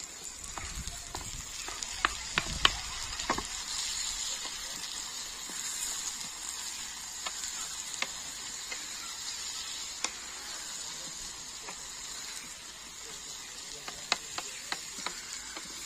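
Peppers, onions and freshly added diced tomatoes sizzling steadily in a saç pan over a small wood-fired camp stove while being stirred with metal tongs. A few sharp clicks, clustered in the first few seconds and scattered later.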